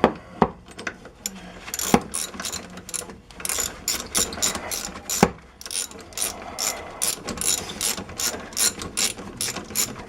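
Socket ratchet clicking in repeated strokes as the brake caliper mounting bolts are run in, with a few louder knocks among the clicking.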